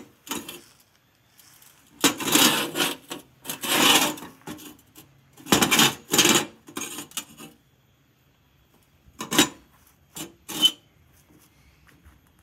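A welded steel jig handled and slid on a steel workbench: irregular bursts of metal scraping and clinking, then three short clinks near the end.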